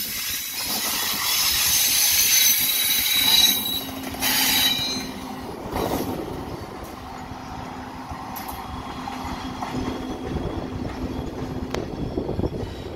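Frecciarossa ETR500 high-speed electric train pulling out of the station, its wheels squealing high on the rails for the first few seconds. A steady low hum follows as the rear power car goes by, and it fades as the train draws away.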